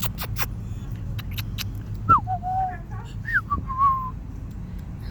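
A person whistling a few short pure notes, one sliding down and holding and another rising and falling, after a few sharp clicks at the start, over the low hum of an idling car.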